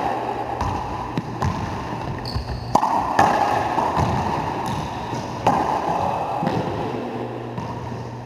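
Racquetball play: the hard rubber ball cracking off racquets and the court walls several times at irregular intervals, each hit ringing in the echo of the enclosed court, over a steady low hum.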